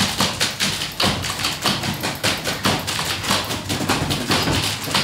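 Several manual typewriters played together as percussion: keys clacking and carriages thumping in a steady, driving rhythm.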